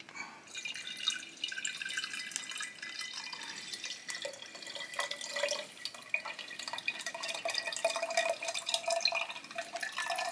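A thin stream of sous vide cooking liquid trickling from the corner of a plastic bag into a glass mason jar, starting about half a second in. A ringing note in the pour slowly rises as the jar fills.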